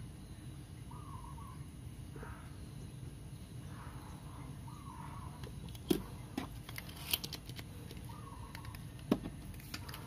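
A few sharp clicks and taps of soldering tools being handled and set down on the workbench, a cluster about six to seven seconds in and one more near the end, over a steady low hum, with faint chirping in the background.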